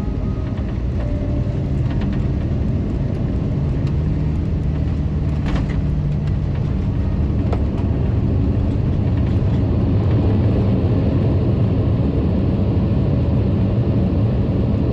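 Boeing 787-10 jet airliner heard from inside the cabin: a loud, steady, low rumble of engine and airflow noise that swells a little toward the middle, with a couple of faint clicks.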